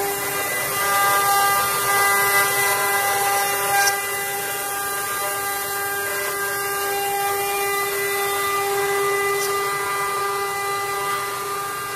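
Windcam multi-spindle CNC wood carving router running, its spindles giving a steady high whine over the hiss of the bits cutting into the wooden blocks.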